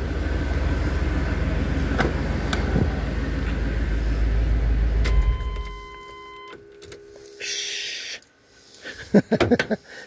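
A 1988 OBS pickup's 350 V8 idling with its exhaust not yet finished, then switched off about five seconds in. A steady electronic warning tone sounds for about a second and a half after the engine dies, then a few clicks and rattles come near the end.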